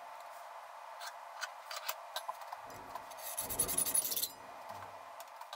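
Hand file scraping across the cut end of a 6 mm steel pin held in a vise, chamfering its edge. There are a few light scrapes and ticks, then two longer file strokes about three and four seconds in.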